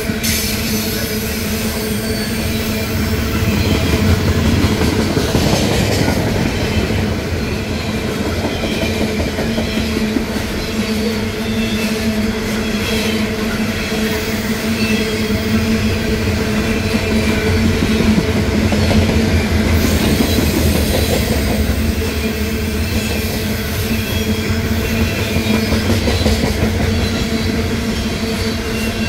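Norfolk Southern coal train's steel coal cars rolling past close by: steady, continuous wheel-on-rail noise from car after car, with a constant hum running through it.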